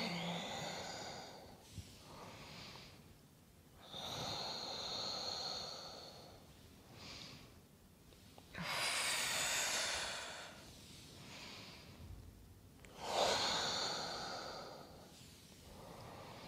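A woman's slow, deep breathing, each inhale and exhale paced to a seated forward-and-back spinal stretch. Four louder breaths come about four seconds apart, with fainter ones between.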